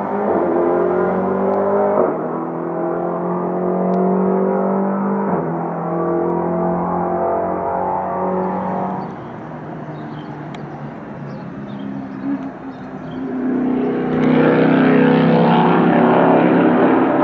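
Ginetta LMP3 race car's 5.0-litre Nissan V8 accelerating hard away, its pitch climbing through each gear with upshifts about two and five seconds in, then fading into the distance. Around fourteen seconds in the V8 is loud again at high revs.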